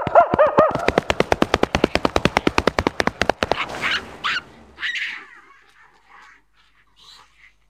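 A man imitating a monkey: rising-and-falling hooting calls speed up into a fast chatter of about ten calls a second, then break off into a few breathy, screechy bursts that fade away.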